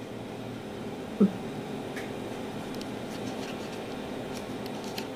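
Steady room tone with a low hum, broken by one brief sound with a dropping pitch about a second in and a few faint clicks later.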